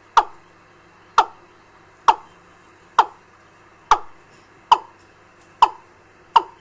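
Recorded fowl (gà) call used as a bird-trapping lure, played through a small amplifier and loudspeaker: eight short notes, each sliding downward, repeated about once a second.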